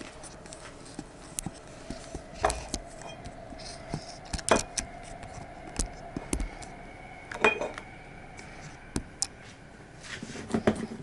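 Kitchen handling sounds: irregular clinks and knocks of utensils and dishes being picked up and set down, with a faint steady hum under the middle stretch.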